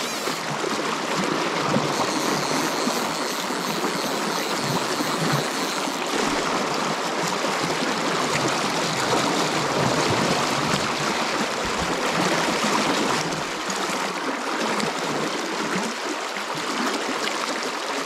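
Fast, riffled creek water rushing steadily.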